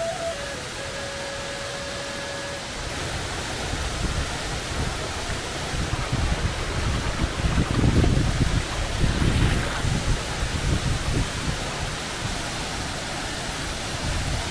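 Rushing water of a roadside waterfall and stream: a steady rushing noise that swells louder in the middle, with low wind buffeting on the microphone. The tail of background music ends a few seconds in.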